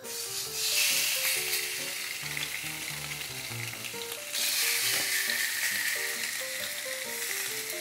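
Marinated turkey breast fillets sizzling on a hot ridged cast-iron grill pan. The sizzle flares up about half a second in as the first fillet goes down, then again, louder, about four seconds in as a second fillet is laid on with tongs.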